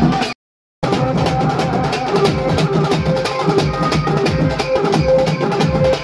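Loud amplified band music with a steady drum-kit beat and a held melody line over it. The sound drops out completely for about half a second near the start.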